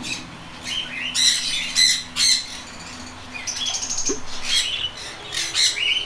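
Budgerigars chirping: a string of short, high chirps and calls, with a quick stuttering call about two-thirds of the way through.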